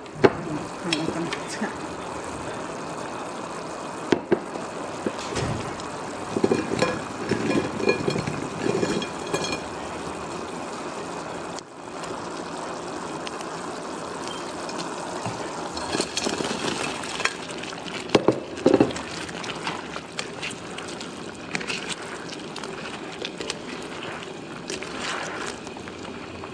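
Thickened General Tso's sauce bubbling steadily in an electric wok. There are occasional knocks and clatters, and later on fried chicken pieces are tipped in and stirred through the sauce.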